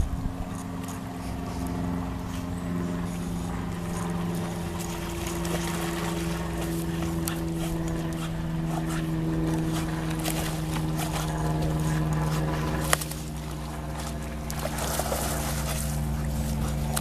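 Steady engine drone, a low hum whose pitch drifts slightly, with a single sharp click about two-thirds of the way through.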